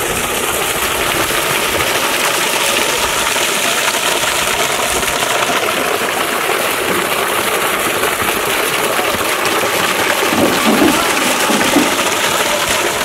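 A strong jet of water gushing out of an outlet and splashing onto wet brickwork and into a pool: a steady rushing and splashing.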